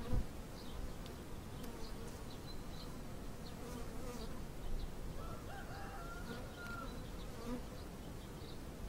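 Honeybees humming steadily from a colony in an open hive, with a brief knock just after the start.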